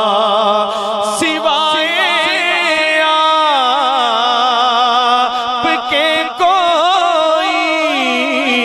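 A man singing an Urdu naat, drawing out long wordless notes that waver with heavy vibrato and slide up and down between pitches.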